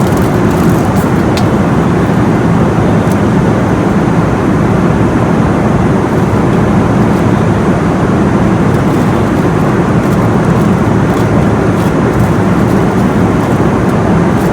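Steady airliner cabin noise in flight: an even, unbroken rush of airflow and jet engines, heard from inside the cabin.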